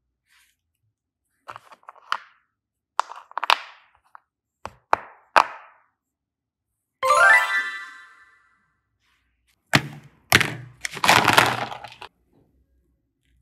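A series of short edited sound effects with dead silence between them: sharp clicks and thunks in small groups, a short stepped rising tone about seven seconds in, then a denser burst of thuds and cracks near the end.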